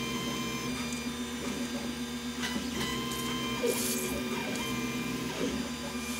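Tevo Tornado 3D printer powered on, humming steadily with a whine of several steady tones from its fans and motors. About three and a half seconds in comes a short hiss of WD-40 being sprayed onto the Z-axis lead screw, with a few light handling clicks around it.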